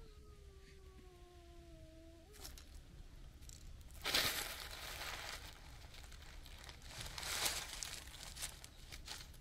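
A cat's long, low meow sliding slowly down in pitch for about two seconds, then bouts of rustling and crunching, the loudest about four seconds in and another near the end.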